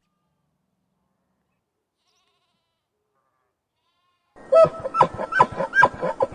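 Dead silence, then about four seconds in a goat bleats: one long quavering call broken into rapid pulses.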